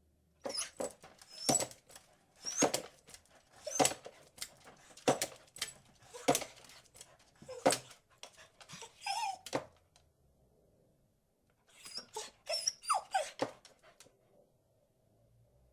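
Beagle barking in a steady series, a bark about every second and a quarter, then a pause of a couple of seconds and a quicker run of barks near the end.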